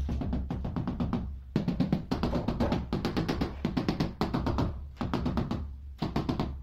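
Rubber mallet tapping a large ceramic wall tile in quick runs of blows to bed it into the adhesive, with short pauses between the runs.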